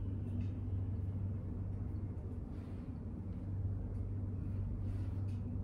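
A steady low hum of background noise, with a few faint soft ticks.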